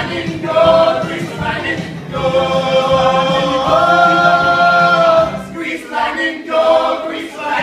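A group of young voices singing together over backing music, holding one long note around the middle.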